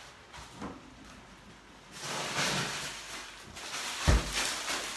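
Rustling and handling noises from someone moving about the kitchen, then a single dull thump about four seconds in.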